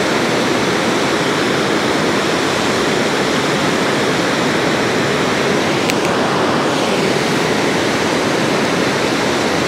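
Water pouring over a dam spillway into the tailwater: a loud, steady rushing roar of falling and churning water.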